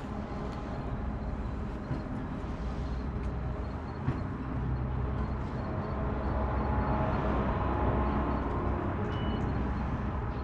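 A boat motor running steadily, growing louder from about halfway through and easing again near the end.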